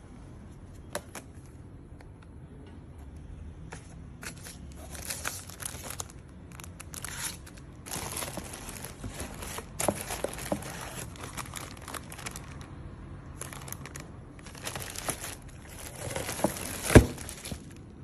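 Plastic packaging bags crinkling and rustling in irregular bursts as wrapped vacuum parts are handled, with one sharp knock about a second before the end.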